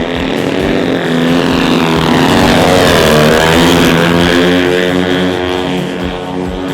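Piston engine of a large radio-controlled model aircraft passing by, its pitch rising and then falling as it flies past about halfway through.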